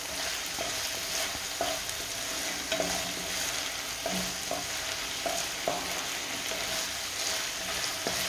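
Minced meat, rice and onion frying gently in oil in a nonstick pan over low heat, a steady sizzle, with a wooden spatula scraping and tapping against the pan every second or so as the mixture is stirred.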